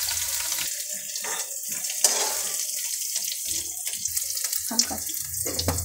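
Hot oil sizzling in a kadhai as fried potato and cabbage pieces are lifted out with a metal spatula, with a few sharp clinks of the spatula against the pan.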